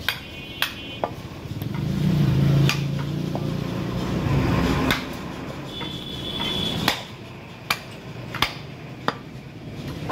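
Heavy butcher's cleaver chopping beef pieces on a wooden log chopping block: about ten sharp chops at uneven intervals. A low rumble runs from about two to five seconds in.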